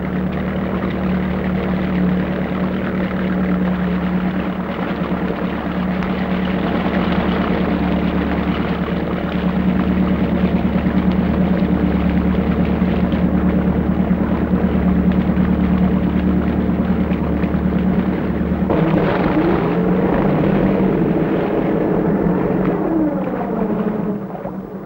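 Canal motor cruiser's engine running at a steady cruising drone. About 19 s in, the deepest part of the drone drops away and a sound whose pitch glides up and down takes over.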